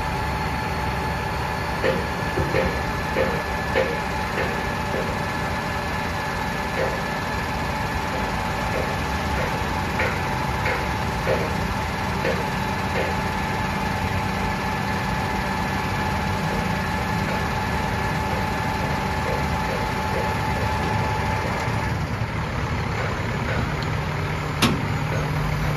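Freightliner 114SD Vactor Guzzler vacuum truck running in place: a steady heavy diesel engine sound with a thin continuous whine over it. The whine stops a few seconds before the end. Scattered light clicks come early and midway, with one sharper click near the end.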